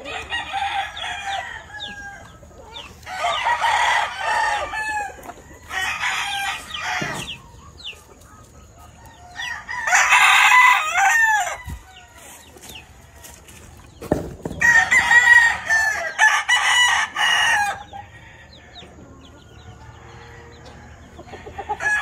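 Asil roosters crowing in turn, about six crows a few seconds apart, each lasting a second or two.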